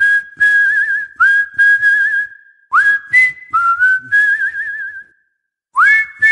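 Background music led by a whistled melody. Each phrase slides up into a held, warbling note over a steady beat, with a brief break about five seconds in.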